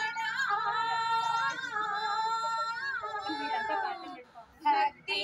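Women singing a devotional song together, holding one long melodic line for about four seconds, then a brief pause and the start of the next phrase near the end.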